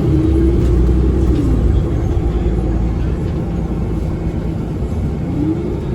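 Nova Bus LFS city bus heard from inside while under way: a loud low rumble with an odd humming tone that rises then falls in pitch about a second in, and rises again near the end. Its cause is unknown to the rider.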